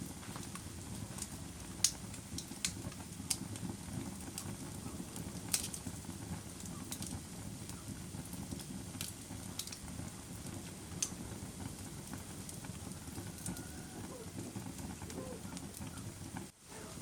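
Wood fire burning in a fireplace: a steady low rumble of flames, with sharp crackles and pops about every second. The sound drops out for an instant near the end.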